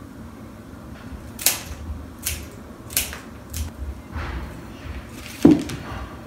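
Cut flower stems being handled and arranged: a few short crisp clicks and rustles, then a louder knock of a small glass bottle vase against the tabletop about five and a half seconds in, as the stems go into it.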